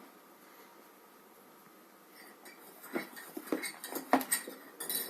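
Handling noise from a cardboard phone box and its packaging: quiet at first, then from about halfway a string of clicks, knocks and rustles, with one sharp knock near the end.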